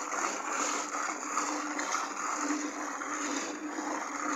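A hand float rubbing and scraping across wet textured wall coating, a continuous scraping swish as the float is worked over the plaster.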